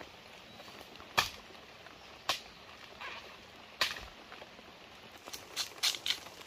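Three sharp strikes, irregularly spaced about a second or more apart, then a quick run of crackling and crunching from dry bamboo leaves and husks underfoot near the end.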